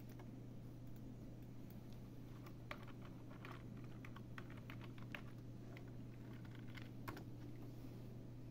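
Typing on a computer keyboard: quick runs of keystrokes from about two and a half seconds in to about seven seconds in, over a steady low hum.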